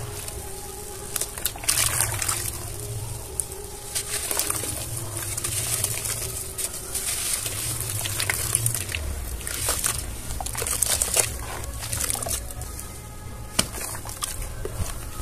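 Hands sloshing and squishing soft cement shapes in a basin of cement-clouded water, crumbling them apart underwater, with irregular splashes and squelches.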